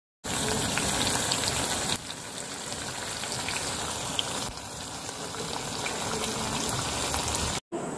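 Ajwain (ova) leaf bhaji, batter-coated leaves, sizzling in hot oil in a kadai: a steady hiss with small scattered pops. It drops a little in level about two seconds in.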